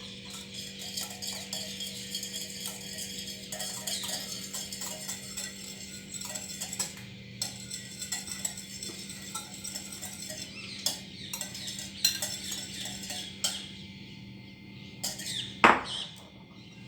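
A spoon stirring and whisking egg batter with chopped potato and onion in a bowl, clinking and scraping against the bowl in quick irregular strokes, with one sharper knock near the end. A steady low hum runs underneath.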